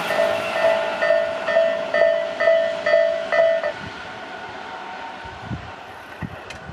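Japanese railroad crossing warning bell ringing in an even "kan-kan" rhythm of about two strokes a second. It stops abruptly about three and a half seconds in. The fading rush of a passing train lies under its first strokes.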